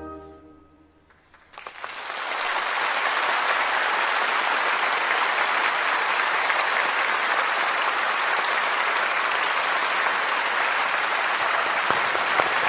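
The last held note of the music dies away. From about a second and a half in, a concert-hall audience applauds steadily and at full strength.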